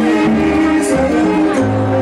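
Dance music playing: sustained melody notes over a steady bass line.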